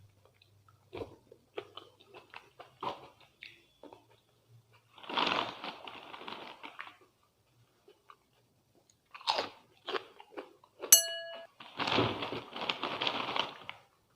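Close-miked chewing with scattered small mouth clicks and two spells of loud crunching, fitting a mouthful of crisp potato chips. Just before the second spell, a single sharp clink rings briefly.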